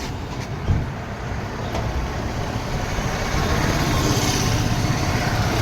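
Road traffic: motor vehicles running, a steady rumble that grows a little louder in the second half, with one knock a little under a second in.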